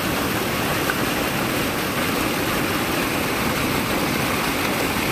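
Steady rush of muddy river water churning into white foam as it pours below a small dam, seething like water at the boil.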